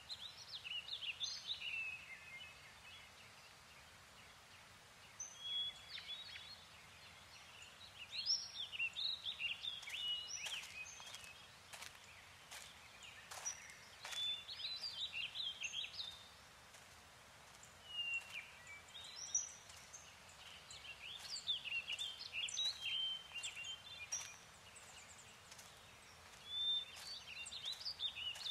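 Woodland songbirds singing: phrases of quick chirps and whistles every few seconds, with short pauses between, over a faint steady hiss. A few light clicks or rustles sound in between.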